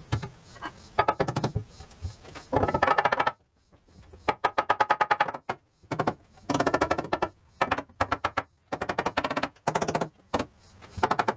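A power tool run in many short bursts of rapid clattering strokes, starting and stopping every second or so.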